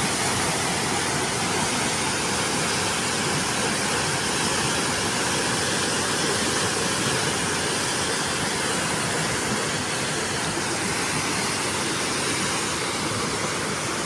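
Reservoir water gushing through opened dam gates down the spillway, a steady, unbroken rush of churning white water released to lower the flood level.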